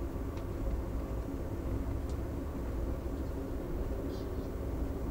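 Steady low rumble of Amtrak's Empire Builder passenger train in motion, heard from inside the passenger car, with a few faint clicks.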